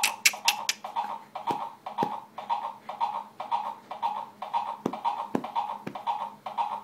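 A plush toy rocking horse's built-in sound effect playing electronic galloping hoofbeats, a quick even clip-clop, between its recorded neighs. A few louder knocks come from the horse rocking on its wooden base.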